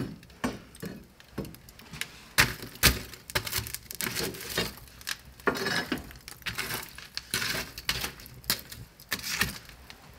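A metal poker raking and knocking burning wood embers in a brick wood-fired oven: irregular clinks, knocks and scrapes of charred wood, with the loudest knocks a couple of seconds in.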